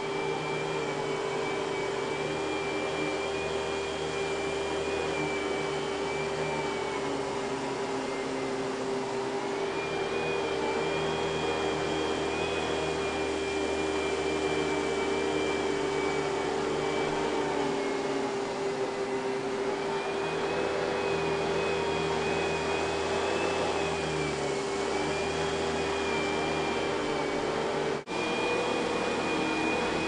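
2000 Kenmore Progressive canister vacuum running, with its power nozzle working over carpet: a steady motor hum under a high whine that wavers slightly in pitch. The canister holds the larger early Panasonic-built motor, which sounds odd for this line. The sound cuts out very briefly near the end.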